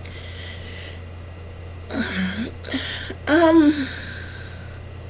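A woman's voice between sentences: a breath in, then a few short spoken sounds about two seconds in, over a steady low electrical hum.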